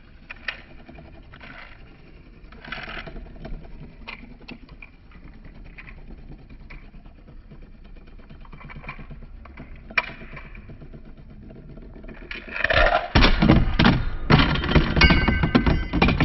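Beyblade spinning tops on a metal stadium dish. At first there is only faint scraping with scattered light ticks. From about twelve seconds in comes a loud run of rapid metallic clacks and rattles as the tops clash.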